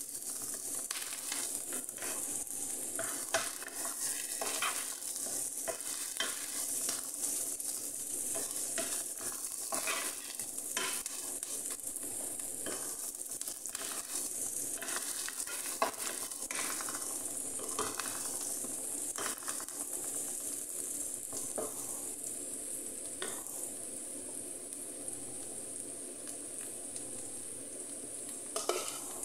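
Chopped onions sizzling in oil in a nonstick frying pan as they brown, stirred with a wooden spatula that scrapes and taps the pan. The stirring stops about three-quarters of the way through, leaving the steady sizzle.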